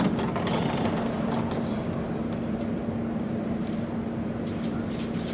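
Inside a DUEWAG B80D Stadtbahn car: a thump right at the start as the sliding doors shut, then the steady hum and rumble of the car, with one constant low tone.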